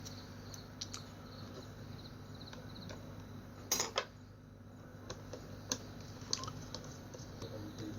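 Scattered small clicks and taps of a motorcycle digital meter's plastic housing and screws being handled during reassembly, with a louder pair of knocks near the middle, over a steady low hum.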